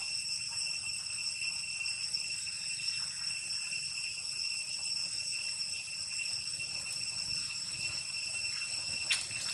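A steady, shrill chorus of insects, holding several high pitches at once. A short knock sounds about nine seconds in.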